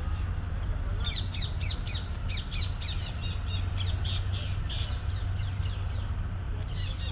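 Birds calling in a quick run of sharp, falling chirps from about a second in until nearly five seconds, starting again near the end, over a steady low rumble.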